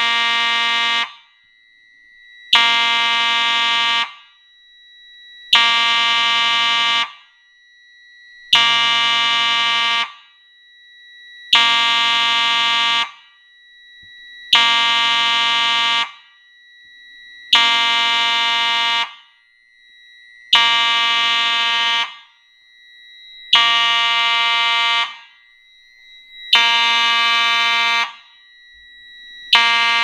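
Simplex fire alarm horns sounding the slow alert-stage pattern of a two-stage system: harsh buzzing blasts about a second and a half long, repeating every three seconds. A faint steady high tone carries on between the blasts.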